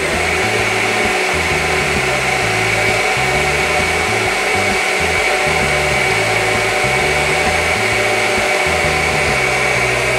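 Electric countertop blender switching on and running at a steady pitch, blending cheese-bread batter. Background music with a bass line plays underneath.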